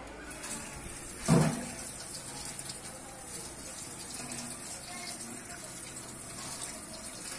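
Kitchen tap running and splashing as a freshly gutted fish is rinsed under the stream and rubbed by gloved hands over a steel pot in a stainless-steel sink. A single short thump comes about a second in.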